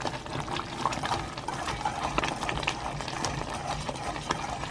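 Food frying in a pan, sizzling with a steady hiss and irregular crackling pops.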